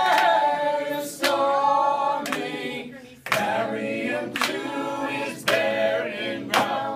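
A cappella group of three men and a woman singing a sea shanty in close harmony, holding long notes, while hand claps keep time about once a second.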